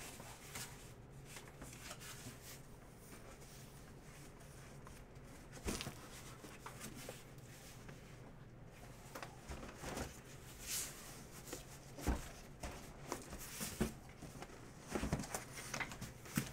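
Cardboard box being handled and unpacked: scattered knocks, scrapes and rustles of cardboard, sparse at first and coming more often in the second half, over a faint room hum.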